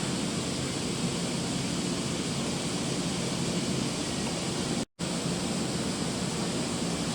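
Steady rushing of wind and sea aboard a ship, with a low hum underneath. It cuts out for a split second about five seconds in, then carries on unchanged.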